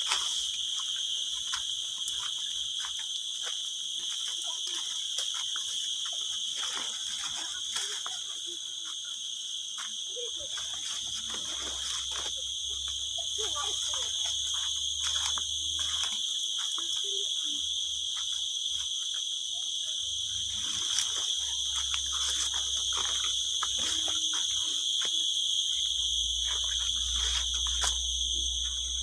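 A steady, high-pitched insect chorus drones on one unbroken pitch throughout. Scattered clicks and stretches of low rumble come and go over it from about a third of the way in.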